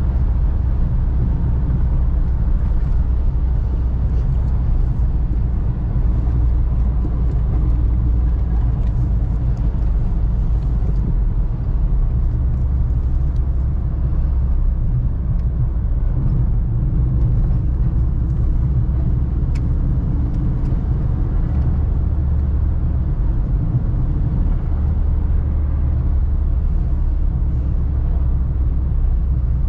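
Audi A3 1.8T with a turbocharged inline-four (AGU) driving at a steady pace: an even, low engine and road rumble with no marked revving.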